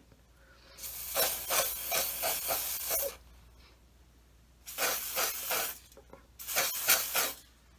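Preval aerosol sprayer spraying body paint onto the face in three hissing bursts, the first about two seconds long and the next two shorter.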